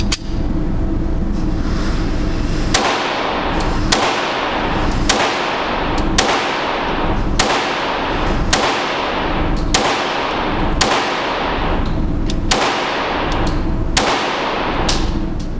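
Pistol shots from a Glock firing .357 SIG through a ported Lone Wolf conversion barrel, about a dozen single shots spaced roughly a second apart. A steady, dense sound runs underneath.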